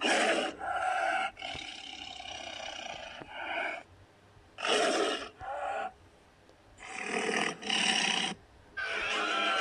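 Custom Godzilla-style monster roar sound effects: a series of short, harsh roars, mostly under a second each, with a longer, quieter growl between them early on. Music with sliding tones comes in near the end.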